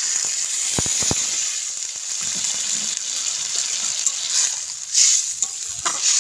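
Cauliflower and potato curry with ground spice paste sizzling in a hot kadai just after water has been poured in, while a metal spatula stirs and scrapes through it. Two sharp clicks come about a second in.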